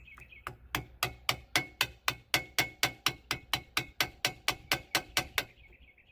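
A hammer tapping on metal, a quick even run of about twenty ringing strikes at roughly four a second, which then stops; it fits knocking loose a winch gearbox cover plate held on by grease.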